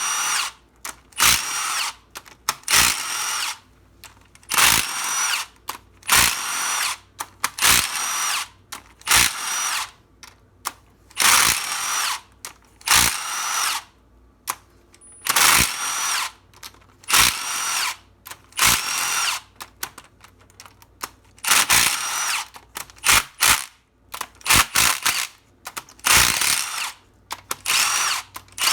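Handheld power driver spinning bolts out in many short bursts, each a second or less with a whine that rises as it spins up.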